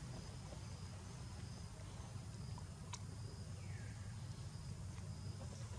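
Outdoor ambience: a steady low rumble with a faint high tone that comes and goes, a single click about three seconds in and a short falling chirp just after it.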